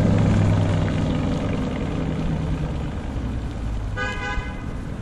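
Car engine running with a low, steady drone that slowly fades, and a short horn toot about four seconds in.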